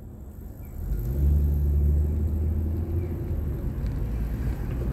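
Car engine rumble heard from inside the car's cabin, swelling about a second in and then holding as a steady low hum.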